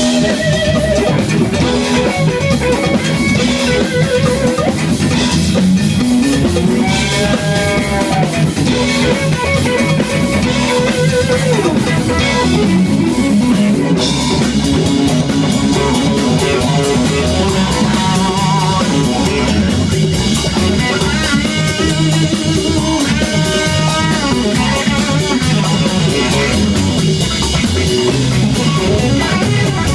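A live funk-rock band playing: electric guitar lines with bent notes over drum kit and bass guitar.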